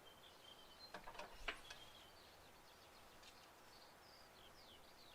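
Faint birds chirping and whistling in the background, with a couple of small clicks about a second in.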